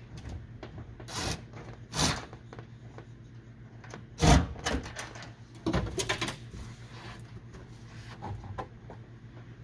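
Metal shelf brackets and hardware knocking and scraping as they are slid back into place along a van's ceiling: a string of separate clunks over a steady low hum, the loudest about four seconds in.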